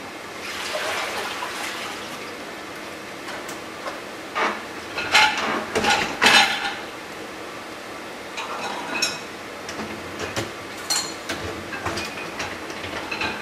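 Dishes, pans and utensils clattering and clinking during kitchen clean-up, with the loudest clanks about five to six and a half seconds in.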